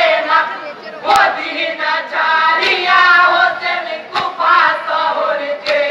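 Jari gaan, the Bengali Muharram lament song, sung by a group in chorus, in continuous phrases. Sharp strikes mark the rhythm about every one and a half seconds.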